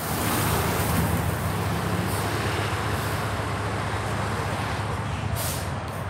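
Vehicle engines idling in stopped highway traffic, including semi trucks: a steady low hum over a bed of road noise. One low engine tone drops out about two seconds in, and a short hiss comes a little after five seconds.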